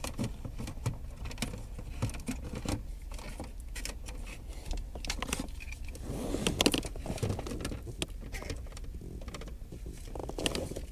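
Irregular plastic clicks and rattles of hands working wiring plugs loose from behind a car's dashboard trim panel, with a busier stretch of handling about six seconds in.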